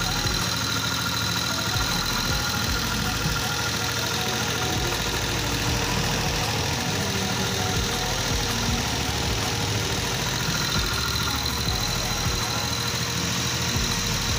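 Honda Pop 100's small single-cylinder four-stroke engine idling steadily.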